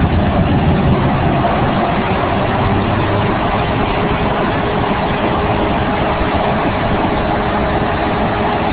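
The large diesel engine of a Beast 4680XP track-mounted horizontal grinder, running steadily with a deep hum.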